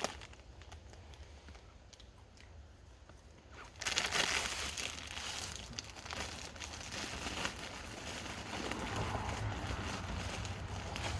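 A bag of corn chips crinkling and rustling, faint at first, then much louder from about four seconds in, over a steady low hum.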